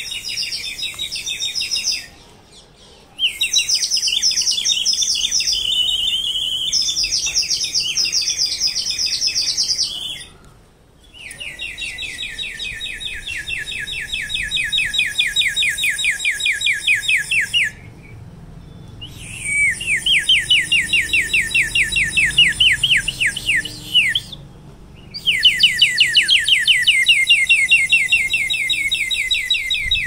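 Songbird song in long runs of fast, rapidly repeated high trilled notes, broken by four abrupt silences of about a second each.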